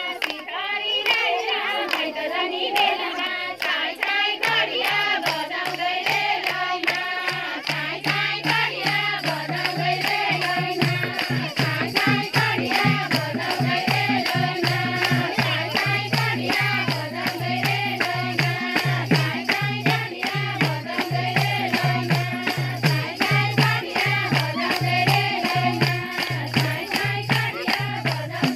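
A group of women singing a Nepali Teej folk song together, with many hands clapping in time and a steady low drum beat under the singing.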